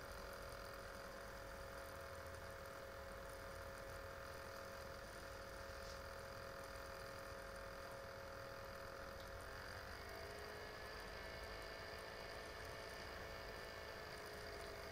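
Faint room tone: a steady low hum with a few thin whining tones, which shift slightly lower about ten seconds in.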